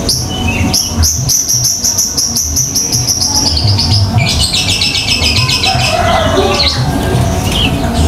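Songbird singing: a fast run of repeated high notes that slide slightly lower, then a dense rapid trill about four seconds in, over a steady low rumble.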